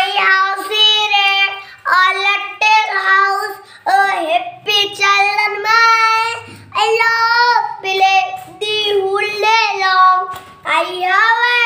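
A young boy singing unaccompanied in a high voice, in short drawn-out phrases with brief breaks between them.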